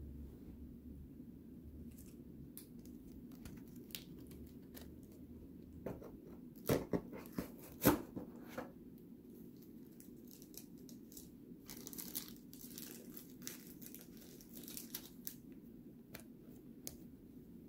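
Foil trading-card pack wrapper being torn open and crinkled by hand, with scattered clicks of cards being handled. The loudest crackles come in a short cluster about seven to eight seconds in, and a longer spell of crinkling follows around twelve to fifteen seconds in.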